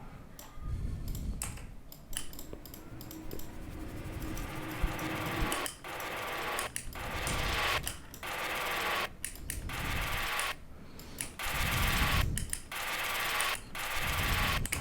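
Short electronic fill samples, noisy swells and hits like reverse crashes and impacts, previewed one after another at low volume, each stopping abruptly before the next.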